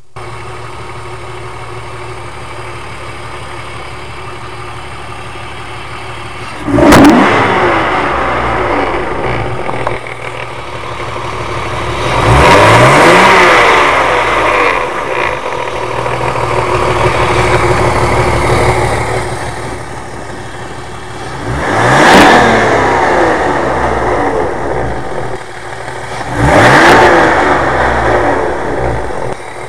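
BMW E36 328i's 2.8-litre inline-six idling steadily, then revved four times, each rev rising and falling back toward idle. The engine has a rattle that the owner suspects comes from the Vanos unit or the timing chain.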